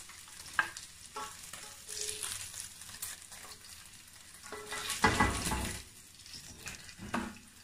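Chicken pieces sizzling in a stainless steel frying pan while a slotted spatula scrapes them across the pan and scoops them onto a plate, with short scrapes and ticks throughout. A louder clatter of the spatula comes about five seconds in.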